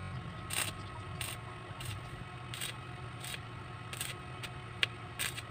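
Stick arc welding on a square steel tube chair frame: short crackling bursts of the arc about every two-thirds of a second over a steady low hum from the welding machine.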